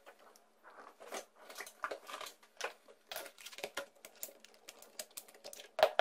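A Toshiba laptop's plastic case being handled: the laptop is closed, flipped over on a wooden desk, and its battery is unlatched and slid out. This gives a run of light plastic clicks and knocks, the loudest near the end.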